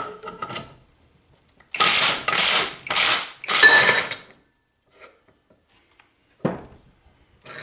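A three-jaw gear puller's forcing screw being cranked with a ratchet wrench against a small-engine flywheel, in four quick ratcheting strokes, followed by a single sharp snap later on as the flywheel breaks free of the crankshaft taper.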